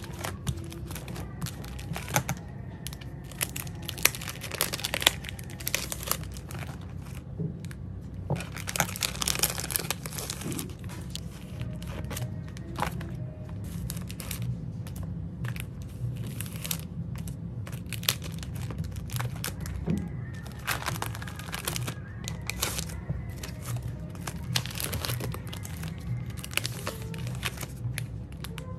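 Clear plastic binder sleeves crinkling and rustling as the pages of a ring binder of sticker sheets and photocards are handled and flipped, with many sharp crackles and clicks and a denser stretch of crinkling about a third of the way in.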